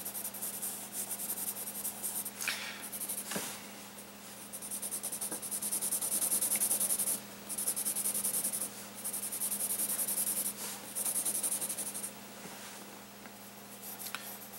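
Graphite pencil scratching across sketchbook paper in rapid back-and-forth shading strokes, coming in spells of a second or two with short pauses between, as the background is hatched in dark.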